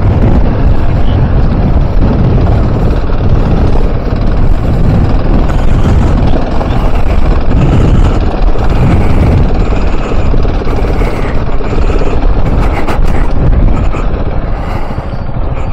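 KTM 690 Enduro R's single-cylinder engine running as the motorcycle is ridden along a loose off-road trail, loud and unbroken.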